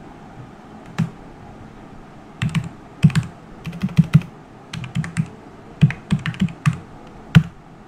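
Computer keyboard keystrokes: a single key press about a second in, then irregular clusters of quick key clicks as a password is typed at a terminal's password prompt.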